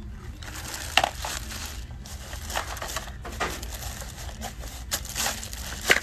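Clear plastic wrap on a tennis racket crinkling and crackling as the racket is handled and turned over, with irregular sharp crackles, the loudest about a second in and near the end.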